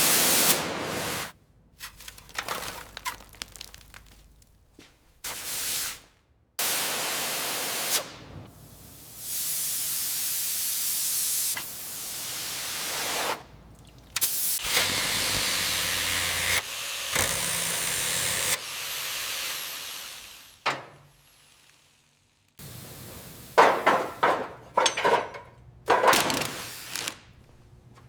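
Workshop sounds in short cuts: several bursts of loud hissing spray, each stopping abruptly, then a quick run of sharp knocks and clicks near the end.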